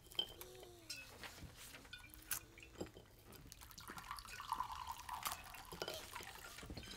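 Quiet drinking sounds, soft liquid gulps and drips, with scattered small clicks of dishes and bottles on a table.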